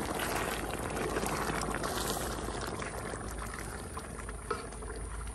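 Wooden spoon stirring thick crawfish étouffée in a large aluminium pot, the sauce sloshing and bubbling, with one light knock about four and a half seconds in.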